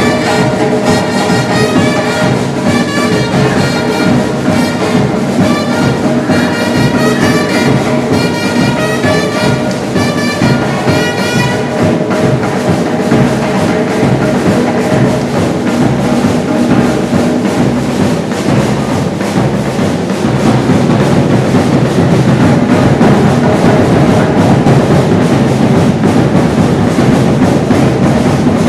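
Batucada samba percussion ensemble playing a steady groove. For the first twelve seconds a pitched melody line runs over the drums. The melody then stops and only dense drumming continues, growing louder about twenty seconds in.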